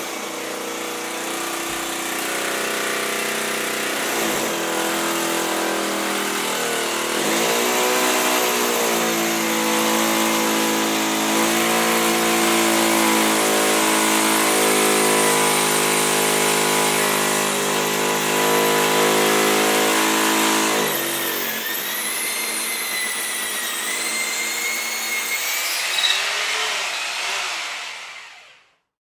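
Electric hammer drill running continuously with a motor whine; its pitch dips and recovers about eight seconds in. About twenty-one seconds in the low hum drops away, leaving a wavering high whine that fades out near the end.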